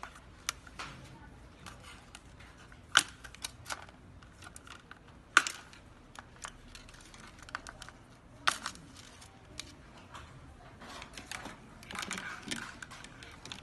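Small plastic clicks and taps from handling a toy quadcopter's motor housing and arm, with a few sharper clicks about three, five and eight and a half seconds in.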